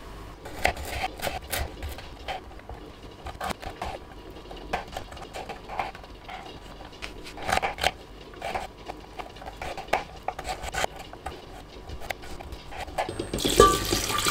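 Kitchen knife chopping beetroot on a wooden cutting board: irregular knocks and taps of the blade on the wood. Near the end, water poured from a glass jug into an enamel pot of diced beetroot, a steady splashing rush.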